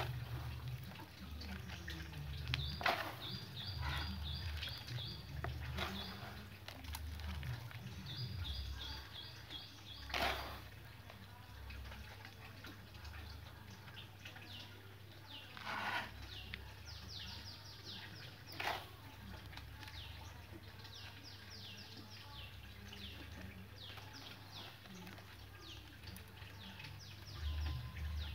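Hands working a potted bonsai and its soil, giving a low rumble of handling and a few scattered knocks. Small birds chirp throughout: two quick trills of evenly repeated high notes in the first ten seconds, then a long run of short falling chirps in the second half.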